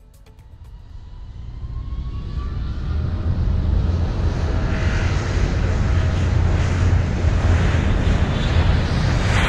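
Spaceship engine sound effect: a low rumble that swells up over about three seconds, then holds steady. A faint rising whine runs through the first two seconds.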